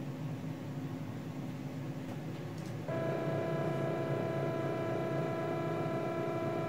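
A CNC router's low machine hum, joined about three seconds in by a steady pitched electrical whine that switches on abruptly and holds unchanged.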